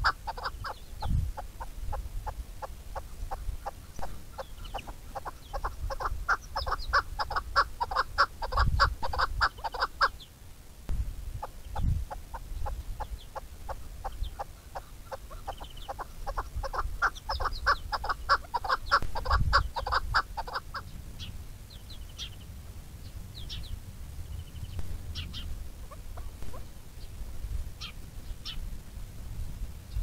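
Chukar partridge calling: a fast, even series of clucking notes, about four or five a second, running for some ten seconds, breaking off briefly, then running again for about ten seconds. After that only scattered short high chirps from small birds, with low wind rumble on the microphone.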